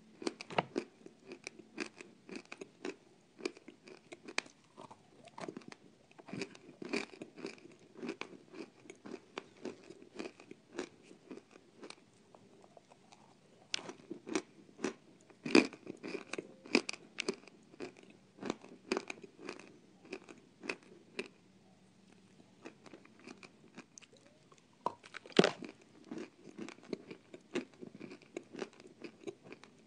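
Dry edible clay being bitten and chewed: sharp, irregular crunches with quieter grinding between them. Louder bites come about halfway through and again near the end.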